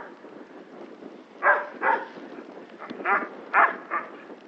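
Alaskan malamute barking: five short barks, two about a second and a half in, then three more about half a second apart near the end.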